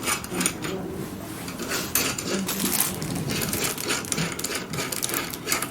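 Irregular clicks and light rattles of plastic and metal machine parts being handled and fitted together.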